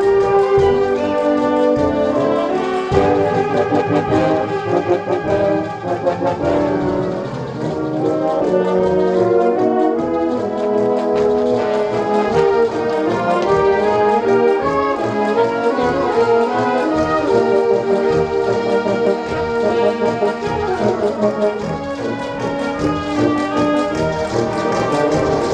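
A wind band playing a tune in full ensemble, with the brass to the fore in sustained chords.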